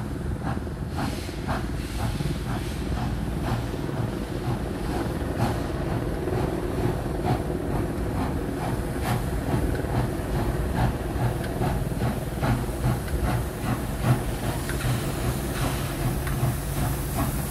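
NSW 36 class steam locomotive 3642 working a passenger train past at speed, its exhaust chuffing in even beats that come closer together as it nears, over a low running rumble. A hiss of escaping steam from around the cylinders grows over the last few seconds.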